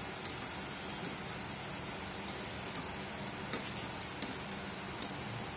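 Oil sizzling steadily under batter balls frying in a paniyaram pan, with several light clicks of a spoon against the pan as the balls are lifted and turned.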